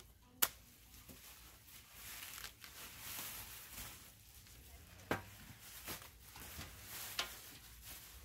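Bubble wrap and plastic film being cut and peeled off a sheet-aluminum skid plate: crinkling and rustling, with three sharp clicks along the way.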